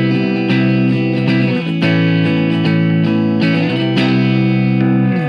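Schecter Telecaster-style electric guitar played through a tube amp with a clean tone. Strummed chords ring out and change about every two seconds, with notes sliding in pitch into some of the changes.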